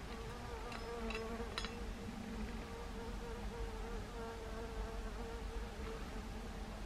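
A flying insect buzzing close by: a steady hum whose pitch wavers slightly.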